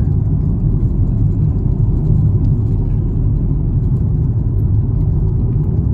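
Steady low rumble of a car driving on a paved road, heard from inside the cabin: tyre and engine noise.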